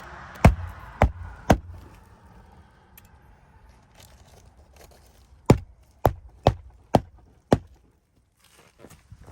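Hammer blows on an asphalt shingle roof: three quick strikes, then after a pause of a few seconds five more, as roofing nails are driven in.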